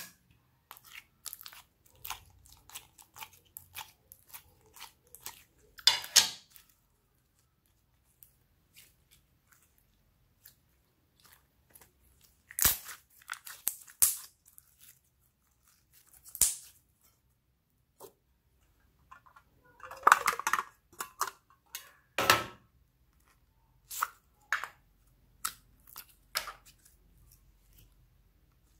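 Slime being squeezed and kneaded by hand, giving irregular wet clicks, pops and crackles as trapped air bursts, with a few louder squelching bursts along the way.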